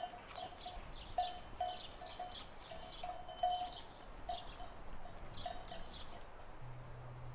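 A livestock bell clanging irregularly, two or three strikes a second, at one unchanging pitch, as the animal wearing it moves; the strikes thin out and stop about six seconds in. A faint low hum comes in near the end.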